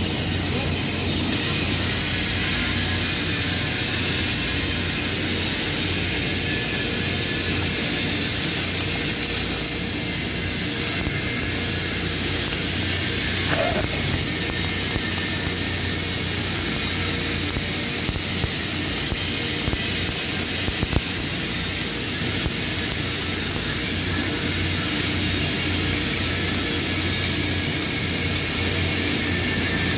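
Wire-feed welding arc, a steady crackling hiss as the gun lays a weld bead on structural steel.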